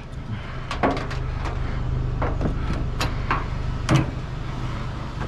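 Vehicle engine idling steadily, with scattered knocks and clicks over it.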